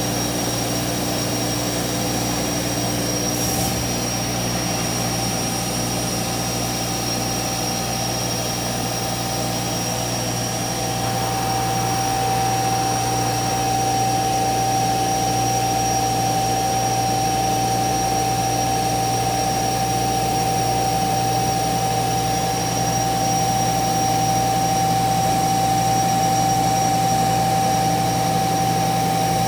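CNC router running, its spindle spinning: a steady machine drone with a thin high whine, and one tone that grows stronger about eleven seconds in.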